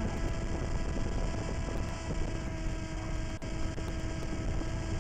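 A steady, even hum with several constant tones, over a low wind rumble on the microphone.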